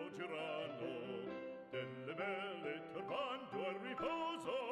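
Background music: an operatic singing voice with wide vibrato over instrumental accompaniment.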